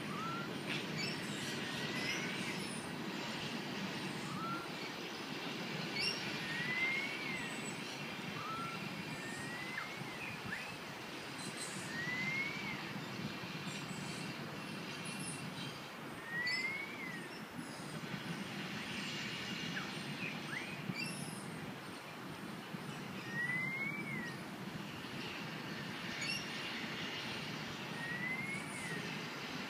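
A bird repeatedly gives short, clear rising whistled calls, about one every two to three seconds, over a steady low background rumble.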